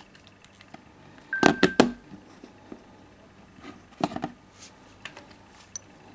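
Phones being handled: a quick cluster of sharp taps and knocks about a second and a half in, with a short beep, then another cluster about four seconds in and a few faint clicks, over quiet room tone. No ringtone is sounding.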